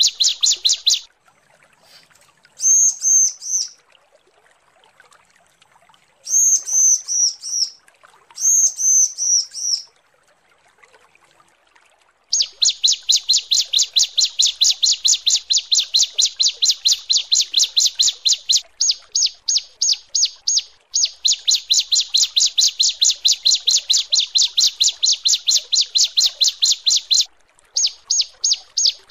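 Female bar-winged prinia (ciblek) calling: a few short phrases of quick falling chirps, then a long fast run of sharp, evenly repeated chirps, several a second, broken by brief pauses. This is the female's call to males.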